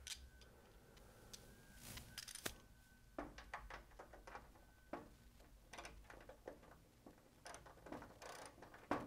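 Faint, irregular clicks and scrapes of hand tools working a fender bunk's machine screw and nut loose, with a few sharper metal clicks.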